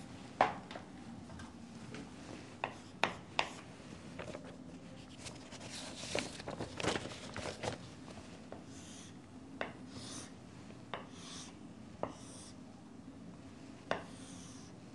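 Chalk drawing lines on a chalkboard: scratchy strokes and sharp taps of the chalk against the board, coming irregularly.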